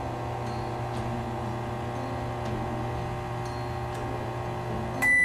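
Microwave oven running with a steady hum as its timer runs out. Near the end the hum cuts off and a high beep starts, signalling the end of the heating cycle.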